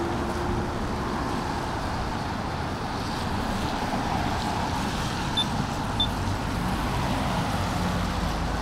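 Road traffic passing on a rain-wet street: a steady hiss of tyres and engines. Two short high chirps about half a second apart come a little past the middle.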